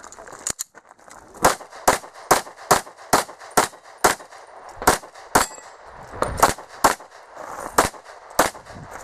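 Semi-automatic pistol fired rapidly in practical shooting: about fifteen sharp shots, mostly in quick strings of two to three a second, with short pauses between strings.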